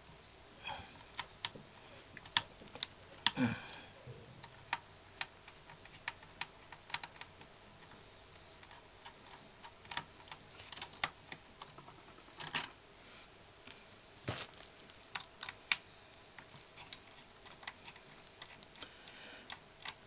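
Irregular small clicks and ticks of a screwdriver working out the screws that hold a laptop's hard drive in place, with metal parts clicking against the chassis.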